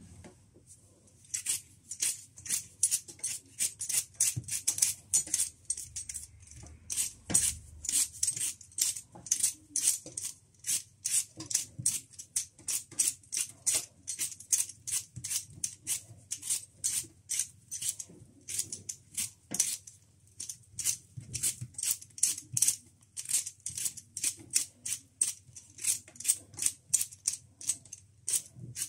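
Vegetable peeler scraping the skin off raw potatoes in quick, rhythmic strokes, about two or three a second, each a short crisp rasp.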